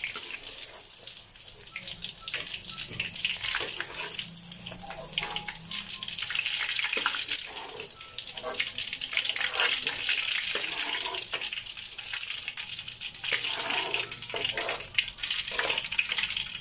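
Battered fish pieces deep-frying in hot oil in a metal wok: a steady sizzle with many small crackles, the fish fully cooked and being scooped out of the oil.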